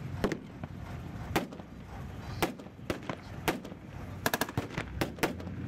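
Blank small-arms gunfire from a battle re-enactment: scattered single shots about one a second, with a quick burst of several shots about four seconds in.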